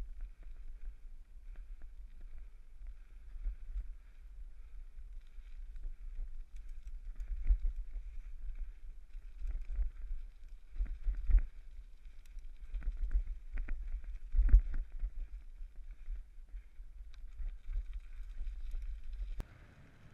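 Bicycle riding over a rough dirt trail: a steady low rumble from tyres and frame, picked up through the bike-mounted camera, with sharp knocks and jolts as it hits bumps. The sound drops abruptly near the end.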